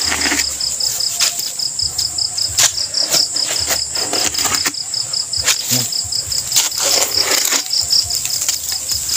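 Night insects chirping in a steady, rapidly pulsing high trill, over irregular scrapes and thuds of a shovel digging into soil.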